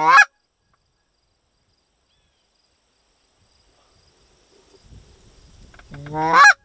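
Two loud Canada goose honks about six seconds apart, each a short low note breaking sharply upward in pitch, over a steady high-pitched insect trill.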